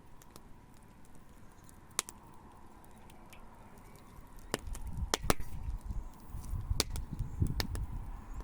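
Outdoor wood fire crackling, with sharp pops at irregular intervals; a low rumble comes in about halfway through and continues.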